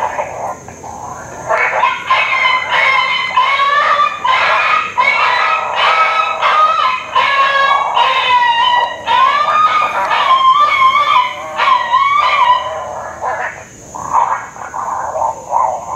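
Coyote vocalizations played from an electronic predator call: a dense run of high, wavering yips and whines, quieter after about 13 seconds.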